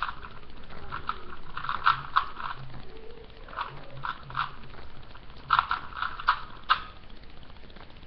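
Plastic Rubik's cube being turned by hand: quick, irregular clicks and clacks as its layers snap round, in clusters with short pauses, the loudest near the end. The layers are being turned through an algorithm to make the cross on the last layer.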